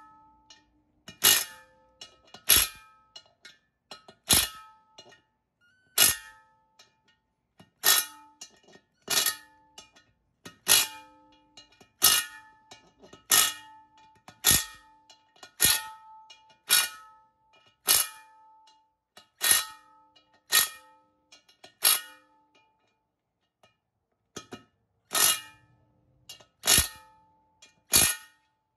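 Matco 1/4-inch drive 12 V cordless impact wrench giving short hits on the small assembly bolts of a multi-piece wheel, one bolt after another. Each hit is a sharp metallic clack that leaves the wheel ringing briefly, about one a second, with a pause of a couple of seconds near the end.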